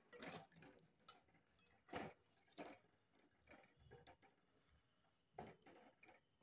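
Faint, irregular taps and scrapes of a spatula against a metal pan as lumps of jaggery are stirred and broken up in water, the start of making jaggery syrup.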